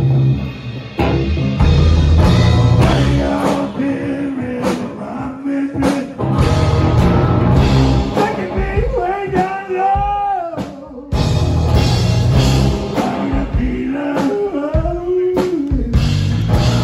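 Live band: a man singing over guitars and bass, with a steady low beat underneath. About eleven seconds in the band stops for a moment, then comes straight back in.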